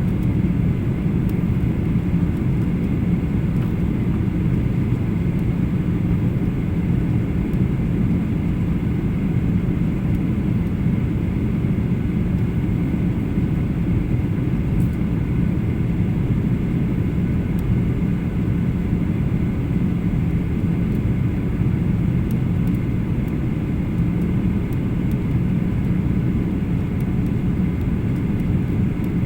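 Steady cabin noise of a Boeing 737-800 in flight, heard from inside the cabin: a low rumble of airflow and its CFM56 engines running evenly, with a faint steady whine above it.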